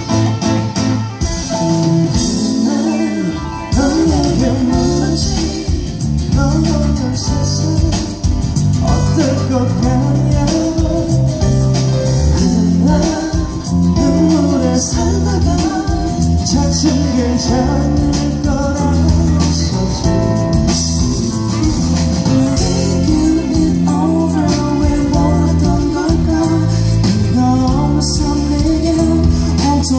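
Live rock band playing through a concert PA, with electric guitars, bass, drums and keyboard and a lead voice singing, recorded on a phone in the audience. The band thins out briefly a few seconds in, then comes back in full with a steady driving beat.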